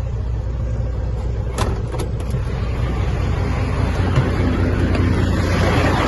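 Semi truck's diesel engine idling steadily, with a few sharp clicks and knocks around two seconds in and a hiss that builds up over the second half.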